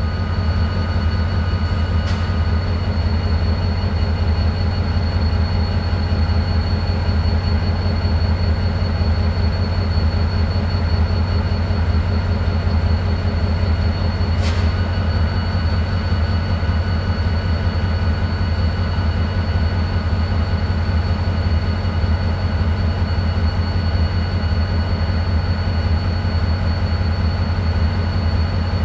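An EMD GT-22CW diesel-electric locomotive's 12-cylinder EMD 645 two-stroke engine idling while the locomotive stands still: a steady, unchanging low drone with a faint high whine over it. Two brief clicks come about 2 and 14 seconds in.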